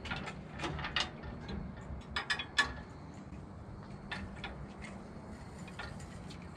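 Scattered light metal clicks and taps as a thin metal blower holder is handled and fitted onto a trailer rack, with three quick clicks about two seconds in.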